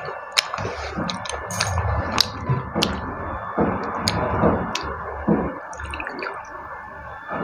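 Fingers mixing and squeezing water-soaked rice (panta bhat) in a steel plate: wet squishing and sloshing, with scattered light clicks throughout.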